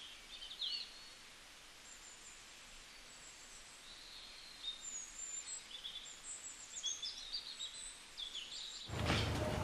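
Small birds chirping faintly, with many short high calls and twitters scattered over a quiet background hiss.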